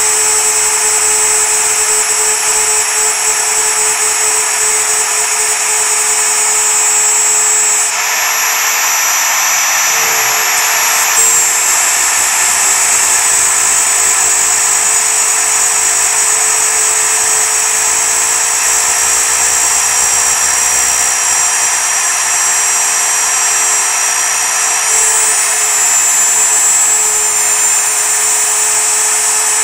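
Router spindle running at full speed while a single-flute end mill cuts 3.5 mm 6061 aluminum plate on a desktop CNC. A steady high whine that shifts in pitch a few times as the cut moves along.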